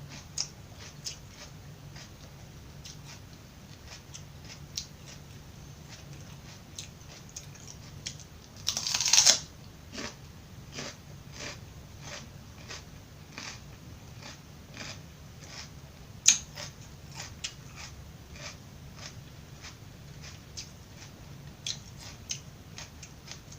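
Close-miked chewing of crisp raw vegetables, with crunches coming about twice a second. A longer, loud crunching bite comes about nine seconds in, and a single sharp crack near sixteen seconds.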